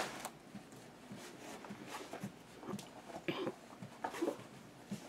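Quiet handling noise: scattered short rustles and soft knocks, with a few louder ones between about three and four and a half seconds in.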